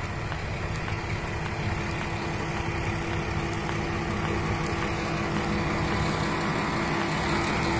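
Red single-car railcar moving slowly past close by, its motor and running gear giving a steady drone with held tones that grows a little louder.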